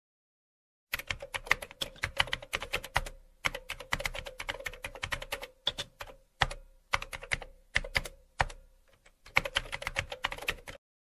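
Rapid typing on a keyboard: quick runs of clicking keystrokes broken by short pauses. It starts about a second in and cuts off suddenly near the end.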